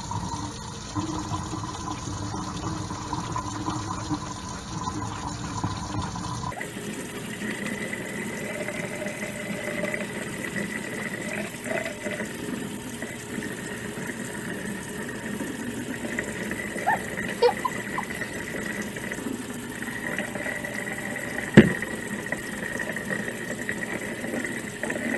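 Kitchen tap running steadily into a stainless steel sink while hands scrub shampoo through wet dreadlocks. A single sharp click comes near the end.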